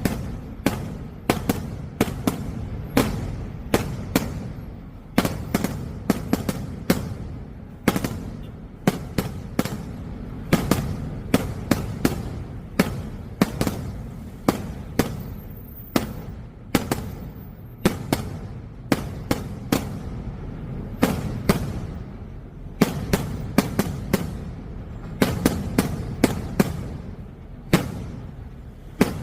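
Festival fireworks going off in a rapid, irregular string of sharp bangs, about two or three a second. A low rolling rumble carries on between the bangs.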